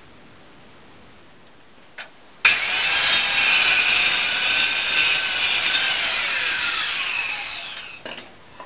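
Corded circular saw starting up about two and a half seconds in and cutting across a wooden board along a clamped guide, the blade running at full speed; near the end the trigger is released and the motor winds down with a falling whine.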